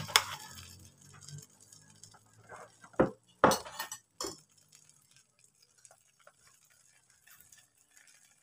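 A spoon and bowl clinking and knocking against a metal baking pan while the first layer of lapis legit batter is poured in. There are a few small clinks, then three sharp knocks about three to four seconds in, and only faint ticks after.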